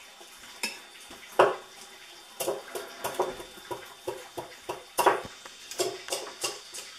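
Wire whisk beating milk and pudding mix in a mixing bowl, its wires clicking and knocking against the bowl's sides in a quick, uneven rhythm. A louder knock comes about a second and a half in, and the clicking grows busier from the middle on.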